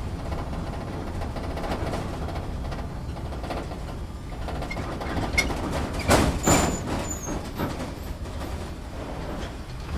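Inside an off-road vehicle's cabin on rough ground: a steady low engine and road rumble with creaks and rattles of the body. About six seconds in come a couple of loud knocks and a brief squeak as the vehicle jolts.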